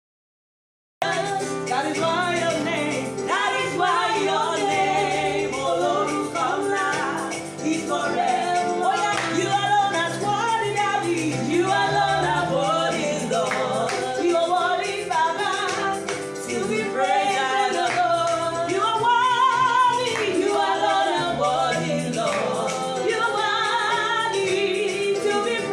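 Gospel praise song sung by a singer with live band accompaniment. The sound cuts out completely for about the first second, then the singing and music run on continuously.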